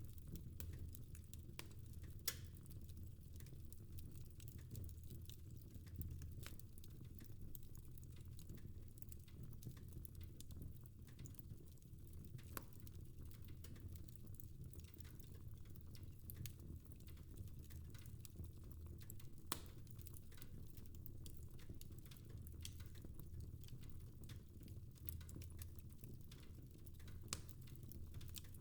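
Fireplace fire crackling faintly: scattered sharp pops and snaps over a steady low rumble.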